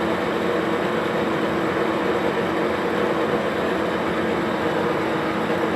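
Metal lathe running steadily, its spindle turning a crankshaft with an even mechanical hum and faint steady tones, as the end is being centred before the first chip comes off.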